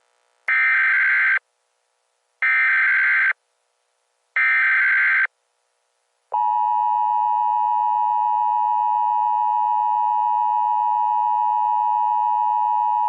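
Emergency Alert System tones: three short bursts of SAME digital header data, each just under a second long and about a second apart. Then, about six seconds in, the steady two-tone EAS attention signal starts and is held.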